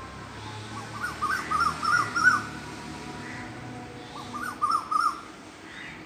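A cuckoo calling: two quick runs of short, arching whistled notes, the first about a second in and the second about four seconds in, with a pause between them.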